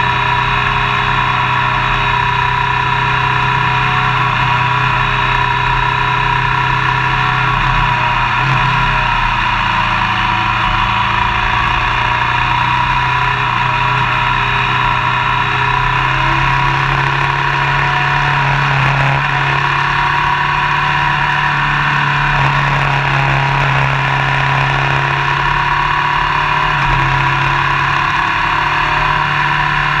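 Motorcycle engine running at a steady cruise, its pitch shifting only slightly, under a constant rush of wind and tyre noise.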